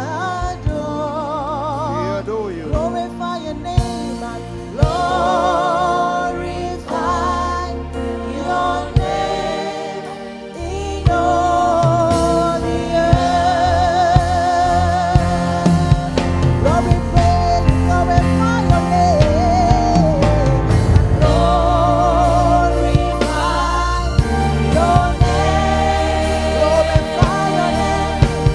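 Gospel worship music: singing with a wide vibrato over instrumental accompaniment. It grows fuller and louder about eleven seconds in.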